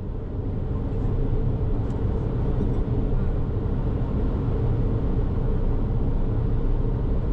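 Steady low rumble of a Daihatsu Atrai kei van driving at speed on an expressway, mostly tyre and wind noise. It fades in over the first second.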